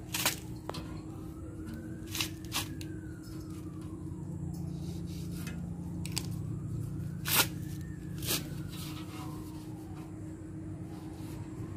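A faint siren wails slowly up and down, about one rise and fall every five seconds. Over it come several sharp clicks and crackles from handling foam gasket tape on the steel rim of a smoker chamber, the loudest about seven seconds in.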